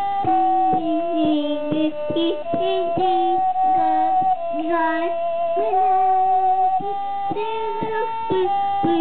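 A young child singing a tune in held, stepwise notes, alongside a higher, steady instrumental melody line.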